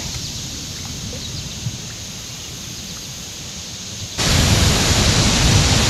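Steady outdoor background noise with a low rumble; about four seconds in it switches abruptly to a louder, even hiss.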